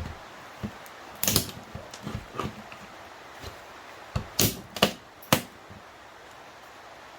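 Sharp knocks and clicks of a seatbelt pretensioner's metal parts being handled and worked on during disassembly, irregular, with the loudest few knocks coming about four to five and a half seconds in.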